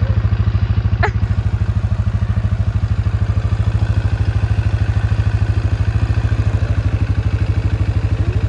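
Suzuki KingQuad quad bike's single-cylinder four-stroke engine idling steadily with an even pulse. A brief high squeak comes about a second in.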